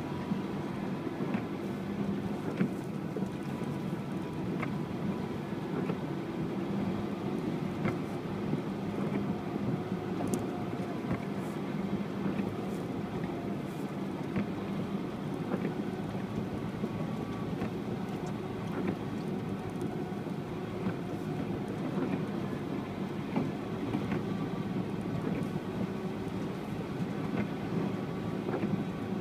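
UAZ Patriot off-roader driving, its engine running at a steady, even drone with a few faint scattered clicks.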